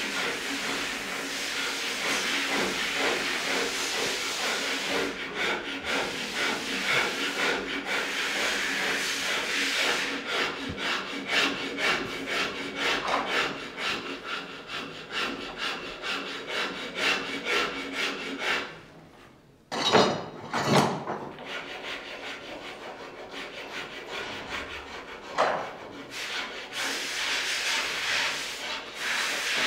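Hand file scraping along a wooden shotgun stock in repeated strokes, rounding the comb. The strokes break off briefly about two-thirds of the way through, then carry on.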